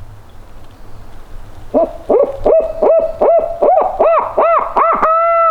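Barred owl hooting: a quick run of about nine hoots, each a short rising-and-falling note, ending in a long drawn-out note that drops in pitch. This is the owl hoot turkey hunters use to make gobblers gobble.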